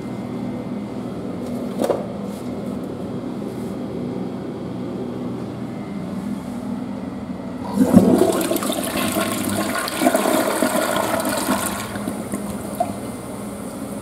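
Western-style toilet with an electronic bidet seat flushing: water rushes into the bowl with a sudden start about eight seconds in, runs strongly for about four seconds, then drops to a quieter flow. Before the flush there is a steady low hum and a single click about two seconds in.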